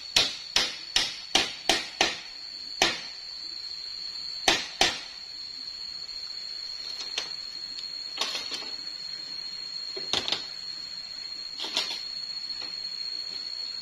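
A run of sharp, evenly spaced knocks, about two and a half a second, ends about two seconds in. A few single knocks follow at uneven gaps, over a steady high-pitched drone.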